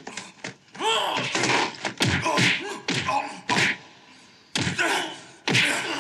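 Kung-fu film fight sound effects: a strained yell about a second in, then a run of hard punch and body-blow hits mixed with grunts.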